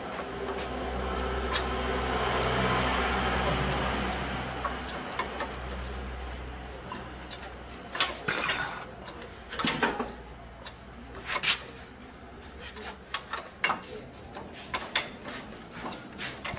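Wrenches clicking and clinking on the steel nut and bolt of a car's lower control arm ball joint as it is worked loose, in irregular sharp metallic clicks through the second half. In the first seven seconds a steady low rumble with a hiss swells and fades, then stops.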